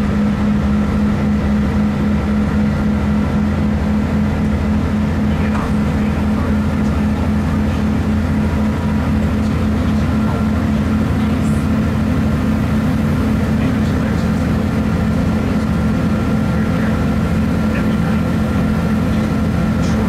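GWR Class 165 diesel multiple unit running along the line: the steady drone of its underfloor diesel engines mixed with wheel and track noise, heard from on board the train. A low hum holds at an even pitch throughout.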